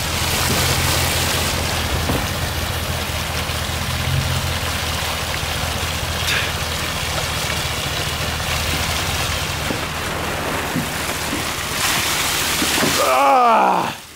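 Water pouring over the edge of a tarp-lined pickup truck bed and splashing onto the ground in a steady rush, as the bed is drained. A low steady hum runs underneath, and a voice calls out loudly near the end.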